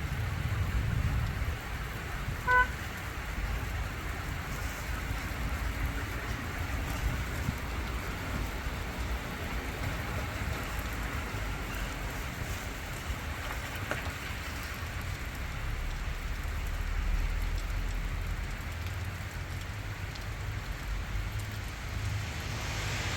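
Rain falling steadily and heavily, with a low rumble underneath. About two and a half seconds in, a single brief pitched beep stands out above it.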